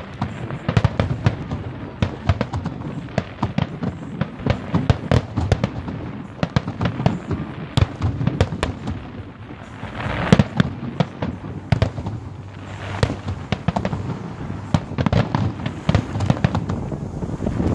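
Aerial fireworks going off in a dense barrage of sharp cracks and bangs, many each second, loudest about ten seconds in.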